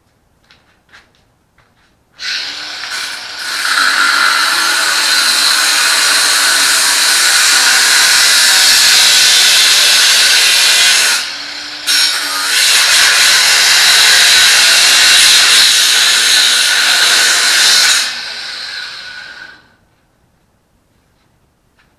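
Ryobi 18V cordless angle grinder with a cut-off wheel cutting through steel: a loud, steady abrasive hiss that starts a couple of seconds in after a few light clicks. It breaks off briefly about halfway, then resumes and winds down and stops near the end.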